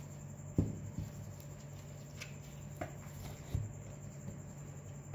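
A plastic tub holding a block of set plaster being handled and turned over, giving a few light knocks and scuffs of plastic, the loudest just over half a second in and another about three and a half seconds in. A low steady hum runs underneath.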